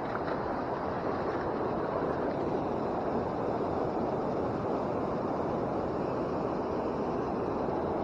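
Steady rushing of river water pouring over a low rocky waterfall.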